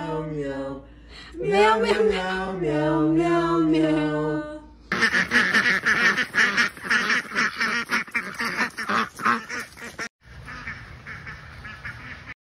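A flock of white domestic waterfowl calling in a rapid, dense clamour that starts abruptly about five seconds in and goes on fainter near the end. Before it, a voice singing for a few seconds.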